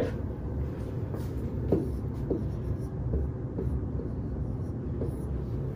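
Stylus writing on an interactive touchscreen whiteboard: a few faint taps and strokes over a steady low room hum.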